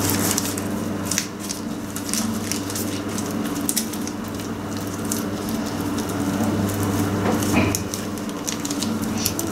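Gloved hands pressing and smearing pide dough on baking paper: soft squishing with many short, crisp crackles of the paper, over a steady low hum.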